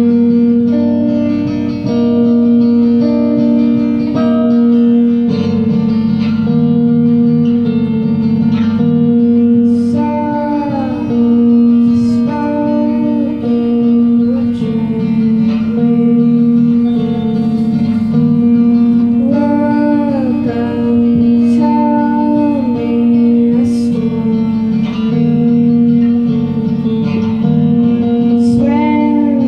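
Live band music: two electric guitars playing a song together with a woman singing, in a small room.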